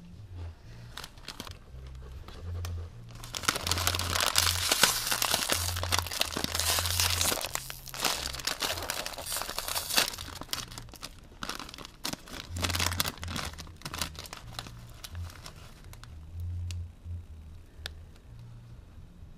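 Plastic-foil chip bag crinkling and being torn open by hand. A dense stretch of loud crinkling runs from a few seconds in to about halfway, followed by lighter, scattered crinkles and clicks.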